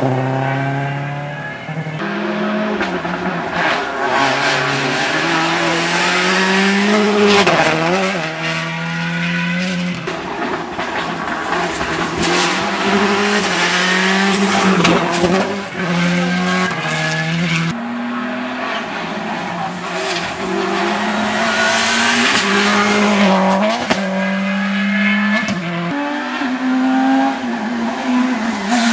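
Rally cars on a tarmac stage passing one after another at full throttle. Their engines rev hard through repeated gear changes, the pitch climbing and then dropping back again and again.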